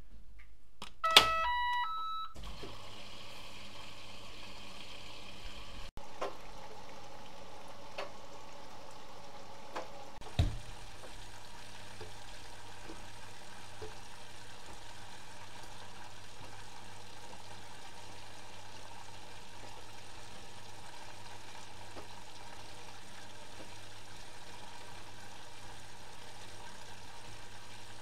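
Bosch Maxx Comfort WFR160A washing machine starting a wash: a short tune of electronic beeps at several pitches as the programme starts. Then come a few clicks and a thump about ten seconds in, followed by steady water inflow and the drum turning during the load-sensing phase.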